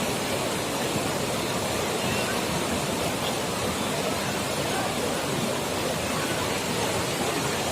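Steady rushing water noise, constant and unbroken, from floodwater or heavy rain.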